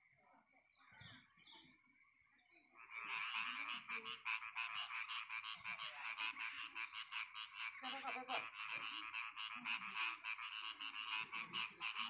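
A chorus of frogs croaking in fast, dense pulses. It starts suddenly about three seconds in and carries on steadily.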